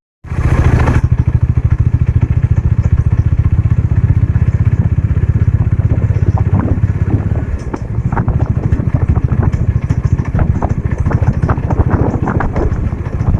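Bajaj Dominar 400 motorcycle engine running loud and close, with a fast, even firing beat. In the second half, sharp ticks sound over the beat, the 'tak tak tak' of engine knocking.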